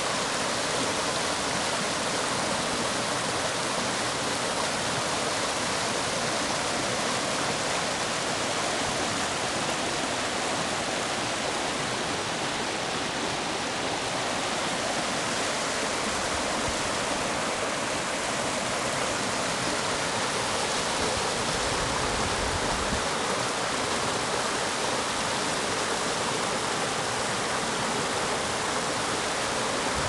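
Shallow, clear stream rushing over boulders and stones in small rapids: a steady, even sound of running water.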